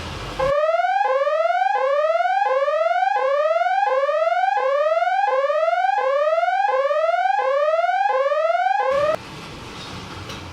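Edited-in electronic sound effect: a tone sweeping upward over and over, about a dozen rising whoops each under a second long. It starts about half a second in and cuts off suddenly near the end.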